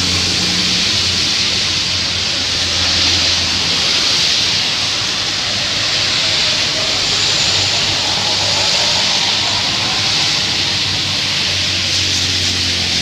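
Heavy rain falling over passing road traffic: a steady hiss of rain and tyres on wet asphalt, with the low hum of truck and car engines swelling and fading as vehicles go by.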